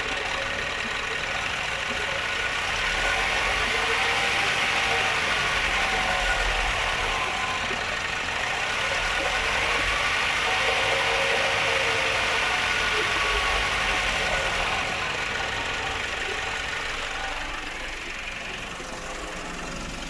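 Nissan Urvan NV350's YD25 2.5-litre four-cylinder diesel engine running with the strange noise its owner is asking about, a steady hiss over a faint tone that drifts slowly up and down in pitch.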